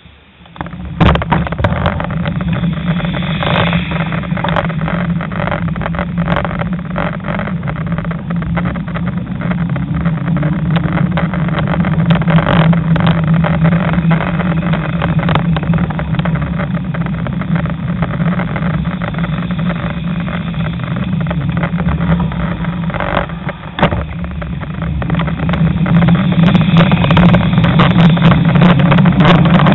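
Riding noise picked up by a bicycle-mounted camera on the move: a steady low drone with frequent knocks and rattles. It starts abruptly about a second in and grows louder near the end.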